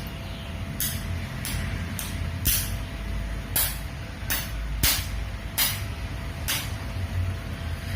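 Sharp snaps of electric sparks, about nine in irregular succession, as a screw is touched against the terminal of a 15,000 µF capacitor charged to about 27 V: a capacitor-discharge spot weld, with arcing at each contact.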